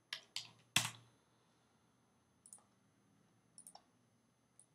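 A few sharp clicks of a computer mouse and keyboard, the loudest about a second in, followed by several faint scattered ticks.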